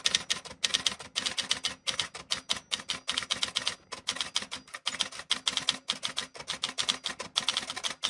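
Typing sound effect: a fast, uneven run of keystroke clicks with a few short breaks.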